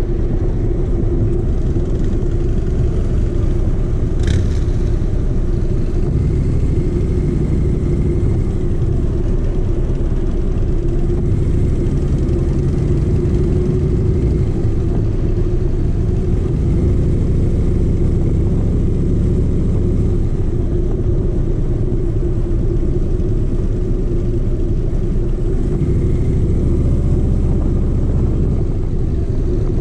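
Motorcycle engine running steadily at low road speed in slow traffic, a continuous low rumble heard from the rider's own bike. There is one brief sharp tick about four seconds in.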